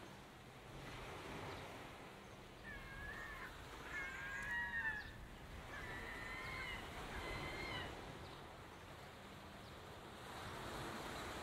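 Gulls crying in a run of short, wavering calls between about two and eight seconds in, over a steady hiss like surf.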